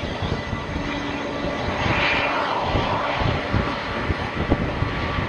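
Boeing 747's jet engines whining as the airliner rolls past on the runway after landing, the sound swelling about two seconds in and then fading. Wind buffets the microphone throughout.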